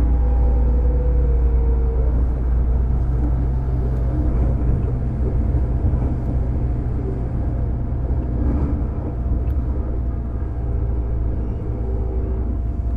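On-board running sound of a JR 205 series electric multiple-unit motor car with MT61 externally-fanned traction motors: a steady rumble of wheels and bogies on the track. A motor and gear whine falls slightly in pitch over the first two seconds and then fades into the rumble.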